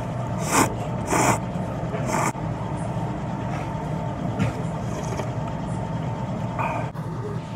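Slurping ramen noodles: three sharp slurps in the first two seconds or so, then fainter sips of broth from a soup spoon, over a steady low hum.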